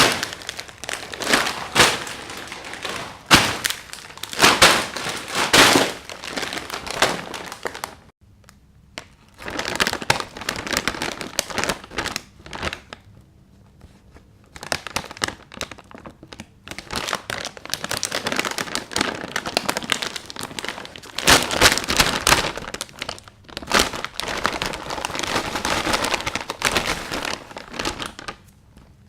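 Plastic potato chip bag crinkling and rustling as it is handled, in irregular bursts with short pauses.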